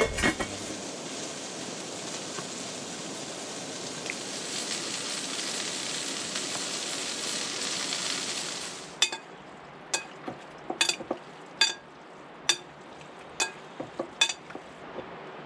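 Sliced peppers and onions sizzling in oil in a frying pan, a steady hiss that swells a little and then cuts off about nine seconds in. Then a run of sharp, ringing clinks, irregularly spaced, as food is mixed by hand in a glass bowl.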